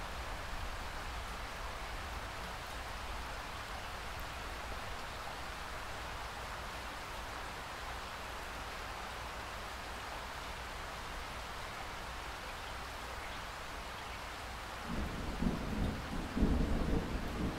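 Steady rain falling. Near the end a low rumble of thunder starts and grows louder.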